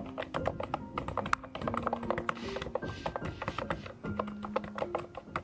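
Steady fast typing on a Durgod K615W 97-key mechanical keyboard: a dense run of key clicks, over soft background music with held notes.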